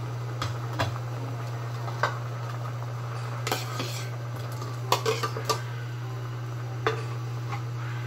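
A metal ladle and a plate clinking and knocking against an aluminium cooking pot as sliced bananas are tipped into the boiling stew and stirred. The clinks are sharp and scattered, bunched together about five seconds in, over a steady low hum.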